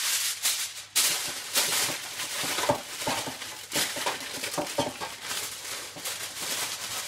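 Aluminium foil crinkling and rustling as a sheet is folded and crimped by hand, with irregular sharp crackles throughout.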